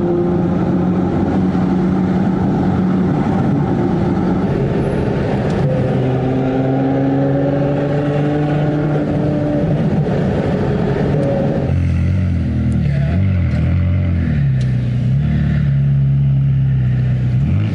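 Ferrari 812 Superfast V12 with a straight-piped exhaust, driving on the road. The engine note climbs slowly for about twelve seconds, then drops to lower revs and wavers up and down as the throttle comes on and off.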